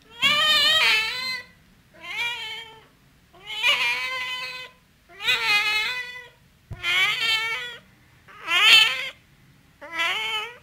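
A cat meowing: seven drawn-out meows, each about a second long, separated by short pauses, with the pitch bending up and down within each call.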